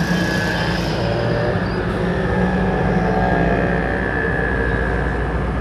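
Steady low mechanical hum with a faint high whine held through it, unbroken throughout.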